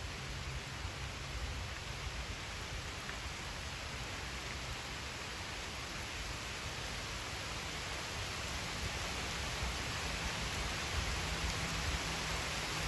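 Heavy rain falling steadily, an even hiss that grows slightly louder toward the end.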